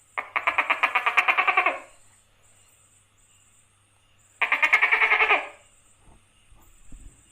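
Tokay gecko calling: two bouts of rapid pulsed rattling calls, the first about a second and a half long, the second about a second, a few seconds apart.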